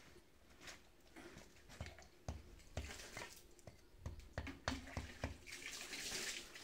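Faint, irregular knocks and dull thuds, a few a second, as bricks and soil are handled at ground level, then a soft rustling hiss near the end.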